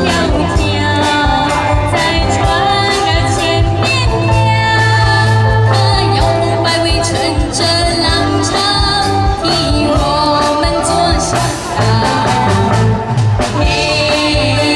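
Live band music with female vocals singing over a steady drum beat.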